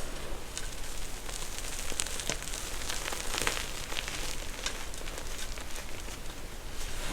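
Close-up crunching and crackling of a crunchy ASMR material being worked, a dense run of small irregular clicks.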